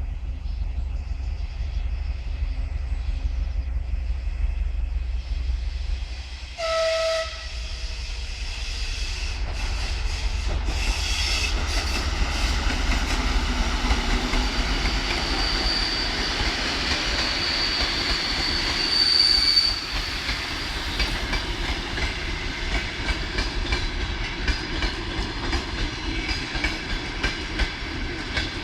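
TEP70 diesel locomotive and its passenger train arriving: a steady low rumble, a short horn blast about seven seconds in, then the growing noise of the train rolling past with the clickety-clack of wheels over rail joints. A thin high squeal rises and fades in the middle.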